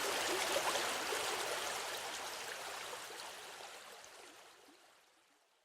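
Small river or stream running over stones, a steady babbling and gurgling that fades out gradually from about a second in until it is almost gone near the end.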